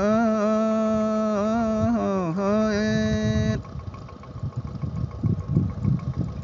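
A singer's voice holding one long drawn-out note of a folk song, steady with a slight waver, breaking off about three and a half seconds in. A low, uneven rumbling noise follows until the singing resumes.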